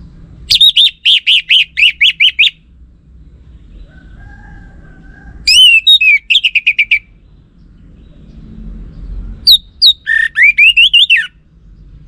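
Orange-headed thrush singing three loud phrases of rapid, repeated high whistled notes, with pauses of a few seconds between them.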